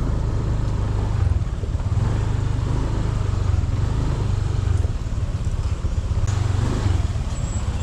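Honda Click 150i scooter being ridden, its single-cylinder engine running steadily under a low rumble.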